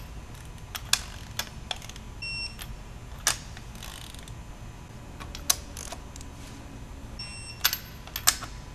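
Digital torque wrench beeping twice, about two seconds in and near the end, as each cylinder-head stud nut reaches the 30 ft-lb first-stage setting, among sharp metallic clicks of the ratchet and socket.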